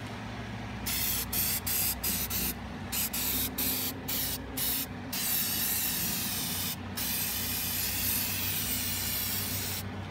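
Aerosol spray-paint can hissing, first in a quick string of short bursts, then in longer, nearly continuous sprays with one short pause.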